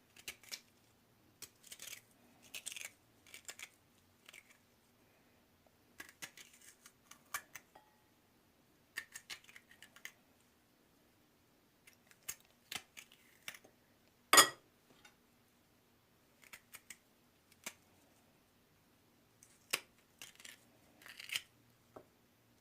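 A pointed spoon scraping and gouging out the hard flesh of a black radish: short irregular scrapes with pauses between them, and one sharp, loud click about fourteen seconds in.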